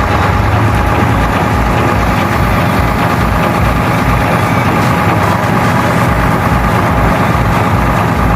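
Heavy diesel engine of farm harvest machinery running steadily, with an even, pulsing low rumble and a steady whine.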